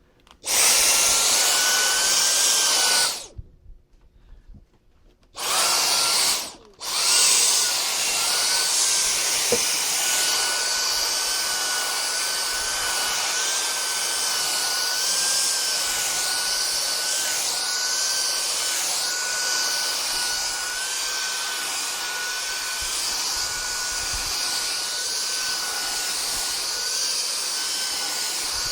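Vacuum cleaner switched on, off again after about three seconds, then back on twice in quick succession before running steadily with a high whine, used to vacuum a cat's fur.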